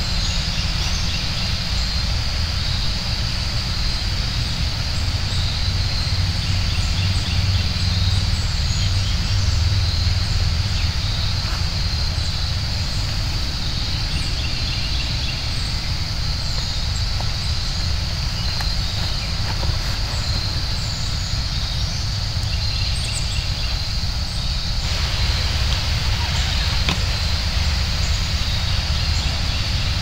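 Outdoor countryside ambience: a steady low rumble of wind on the microphone, a constant high-pitched drone, and scattered faint bird chirps.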